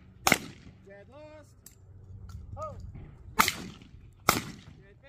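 Shotgun shots fired at clay targets in doubles trap. One shot comes just after the start. About three seconds later two more follow under a second apart, a double fired at the pair of clays thrown together.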